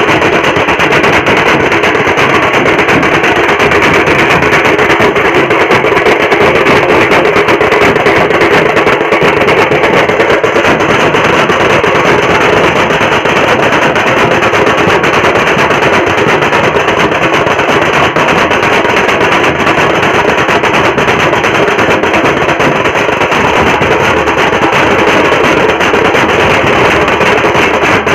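A band of large double-headed drums beaten fast with thin sticks, a loud, dense, unbroken rhythm.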